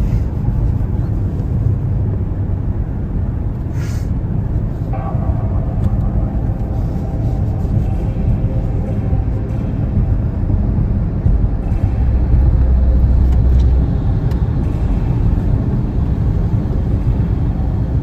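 Road noise inside a moving car's cabin: a steady low rumble from the tyres and engine at highway speed, with a deeper hum for about two seconds past the middle.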